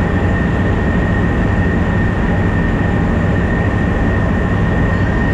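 Steady rumble of a fishing boat's engine running under way, with a constant high whine on top.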